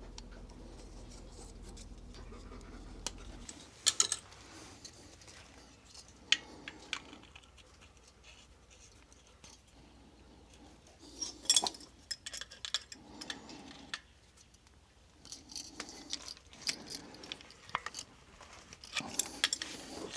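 Hand tools and small metal fittings clinking and scraping in scattered short bursts as a well pump pressure switch and its fittings are worked loose.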